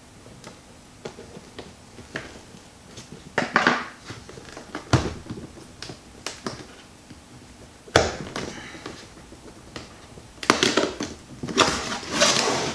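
Cardboard power-supply box being opened by hand: small clicks and scrapes at first, then bursts of cardboard rustling and sliding as the inner box comes out of its sleeve and the lid is lifted, busiest near the end.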